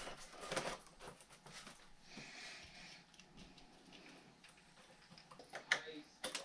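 Faint handling noises of an electric motor being fitted onto the nose of a foam RC airplane: small scrapes and rustles of plastic and foam, with a few sharp clicks near the end.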